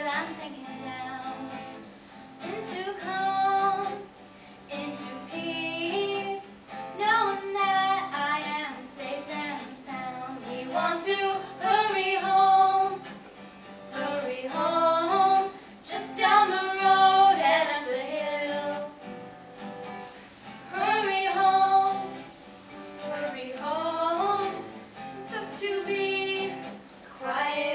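Female voice singing a slow song in phrases a few seconds long, with a soft instrumental accompaniment underneath.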